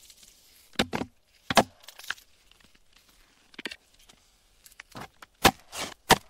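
AI-generated (MMAudio) sound of a pointed metal tool striking and chipping a block of ice. About eight sharp cracks and knocks come at uneven intervals over a faint hiss, the loudest near the end.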